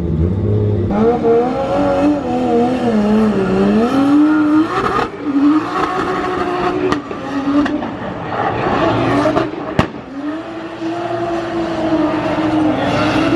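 A drift car's engine revving up and down through a drift run, its pitch repeatedly rising and falling, over tire noise, with a couple of sharp cracks partway through.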